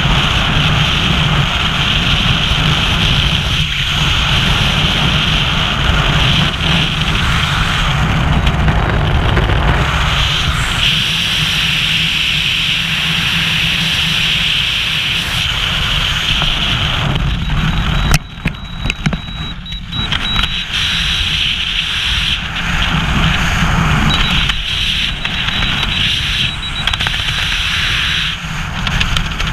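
Freefall wind rushing over a helmet-mounted camera's microphone, a loud steady roar. About two-thirds of the way through there is a sharp click, after which the rush drops and turns gustier.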